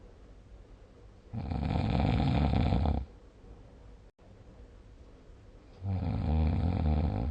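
A person snoring: two loud snores, each about a second and a half long, about four and a half seconds apart, with quiet breathing between them.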